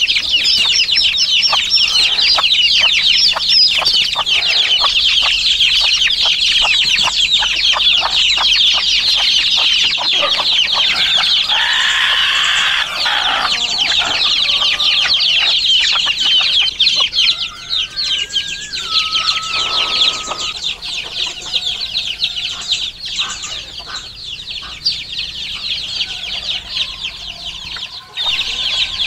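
A flock of young chickens peeping and cheeping, many high calls overlapping at once. The chatter thins out about halfway through, when one longer, steadier call is heard.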